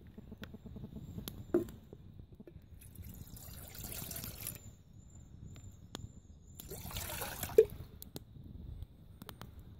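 Water poured from a plastic bottle into an empty metal camping pot in two pours, the first about two seconds long and the second shorter, with a sharp knock near the end of the second pour.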